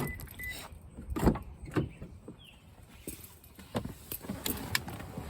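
Scattered knocks and clicks, the loudest a single thump about a second in, with no engine running.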